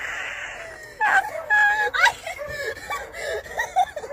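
Wordless human vocal sounds: a breathy rush of air for about a second, then high-pitched, broken laughing and whimpering.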